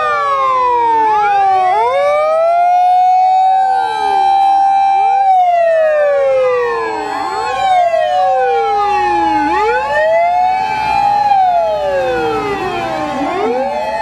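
Sirens of several Japanese fire engines and a fire command van running at once, loud and overlapping: each one rises in pitch, holds, then slowly falls, out of step with the others so that the wails cross over each other.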